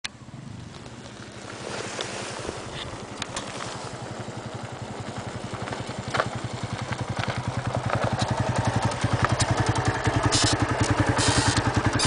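Small motorcycle engine running at low speed, its evenly spaced firing pulses growing steadily louder as it rides up along a gravel road toward the listener.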